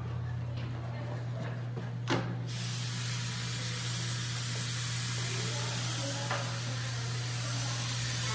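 A single knock, then a bathroom sink faucet starts running about two and a half seconds in. Water pours steadily into the basin onto a dark piece of clothing, a continuous hiss over a constant low hum.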